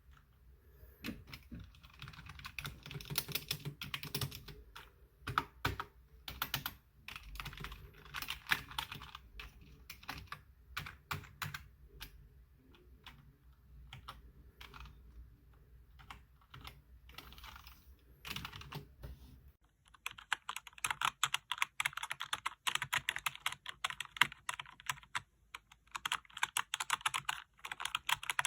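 Typing on a membrane gaming keyboard, keys clicking in quick uneven runs. About two-thirds of the way through the sound changes abruptly to a faster, brighter clatter of keystrokes.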